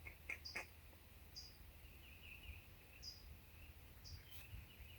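Faint bird chirps: a short, high call repeated every second or so, with a brief twitter about two seconds in, over an otherwise near-silent background.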